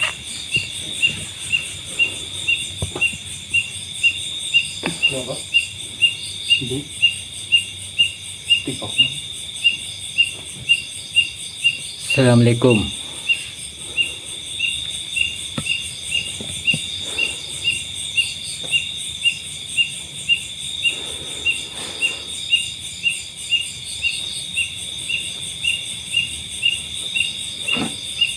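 Night insect chorus: a steady high trilling with a sharper chirp repeating evenly, about twice a second.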